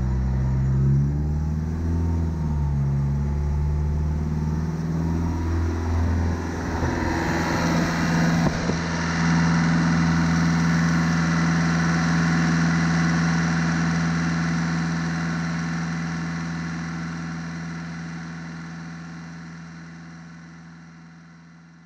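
Freshly rebuilt VW 2.0 TDI common-rail diesel engine running just after start-up, its speed wavering for the first several seconds, then held steady at raised revs from about nine seconds in to bed in the new camshaft. The sound fades out near the end.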